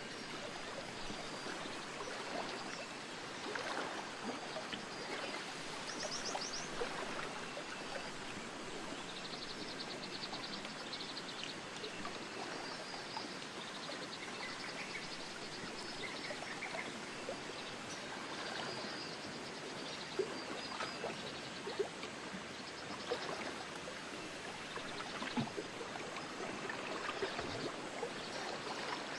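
Steady rushing nature ambience with small ticks and crackles running through it. Short high bird trills come in about six seconds in and again around ten seconds, with a few brief chirps later.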